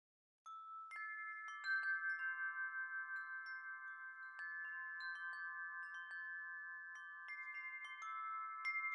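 Wind chime ringing: struck again and again from about half a second in, with a light click at each strike and several clear notes that hold and overlap.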